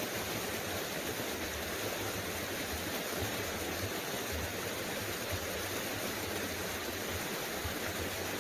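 Small creek's water running steadily, an even rushing hiss.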